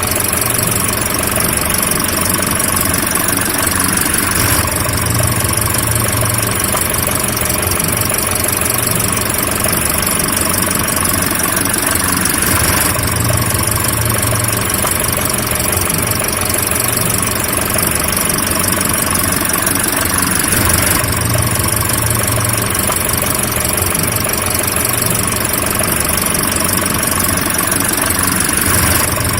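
Car engine running steadily at an even speed, with no revving. The recording repeats in a loop about every eight seconds.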